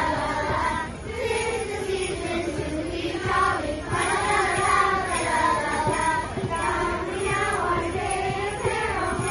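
A children's choir singing a Christmas carol together, many young voices holding sustained, wavering notes.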